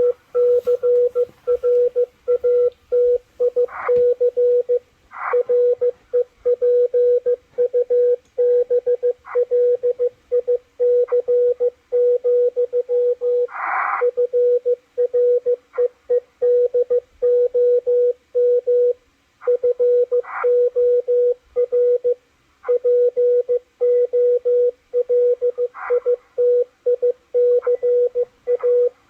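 Morse code (CW) from W1AW coming out of a Malachite DSP SDR receiver as a single steady beep tone, keyed on and off in fast dots and dashes. A few short crackles of noise break in now and then.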